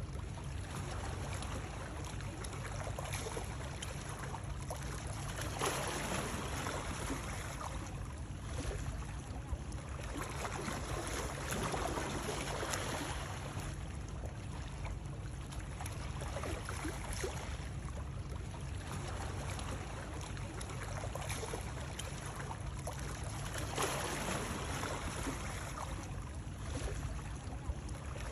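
Continuous water noise over a steady low rumble, swelling and easing every several seconds like water lapping or sloshing.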